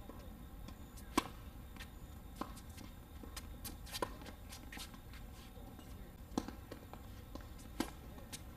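Tennis rally: rackets striking a tennis ball, four sharp pops spaced a second and a half to nearly three seconds apart, the first the loudest, with fainter ticks of ball bounces and shoes on the hard court between.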